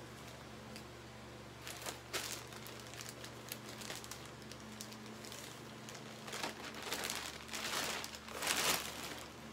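Clear plastic shirt packaging bag crinkling as it is handled and opened. A few short crinkles come about two seconds in, then longer, louder crinkling over the last three seconds.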